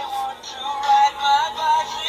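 Animated Halloween ghost-on-a-tricycle toy playing a high-pitched, electronic-sounding sung tune through its small built-in speaker.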